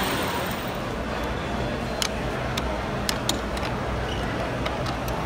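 Wooden toy trains clicking and clacking as they are pushed along a wooden track and coupled by hand: several sharp, irregular clicks from about two seconds in, over a steady hall din.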